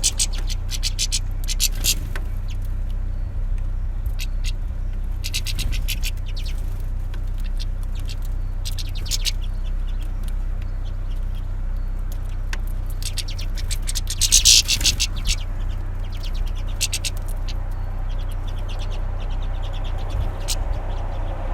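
Small finches at a feeder calling in short, rapid chattering bursts that come several times, the loudest about two-thirds of the way through, over a steady low rumble.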